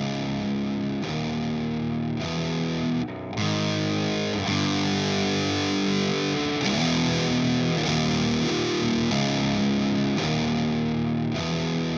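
Heavily fuzzed electric guitar riff: a Gibson SG tuned down to B, played through a Minotaur Sonic Terrors Fuzz and Burn pedal into a Matamp GT120 valve amp. Thick distorted chords are held and changed about once a second, with a brief break about three seconds in, after which the tone is fuller and brighter.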